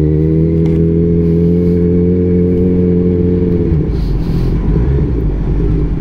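Kawasaki Z1000's inline-four engine breathing through a single aftermarket exhaust, pulling at steady, slowly climbing revs under way. After about three and a half seconds the throttle closes and the even note gives way to a rougher, lower rumble as the bike slows.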